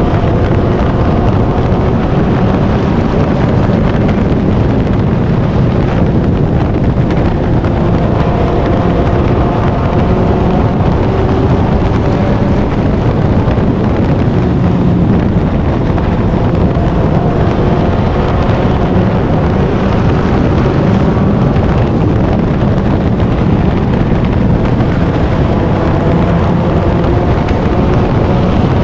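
Four-cylinder stock car race engine running hard, heard onboard the car. Its pitch rises and falls as it laps, over heavy wind and road noise.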